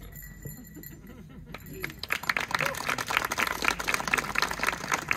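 Crowd applauding, starting about two seconds in and getting louder.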